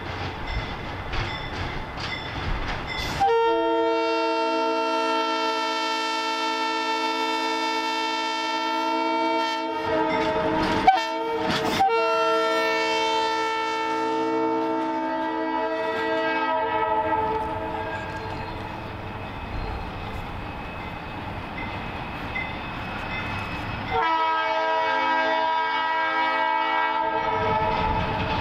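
Alco S2 diesel switcher locomotive sounding its air horn in long held blasts as it approaches and passes, the first starting about three seconds in and the second fading out around the middle. A third blast begins near the end. Between the blasts the engine rumbles, with wheel clicks over rail joints and two sharp knocks.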